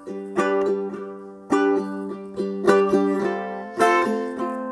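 Chords strummed in a steady rhythm on a small acoustic plucked string instrument, with no singing.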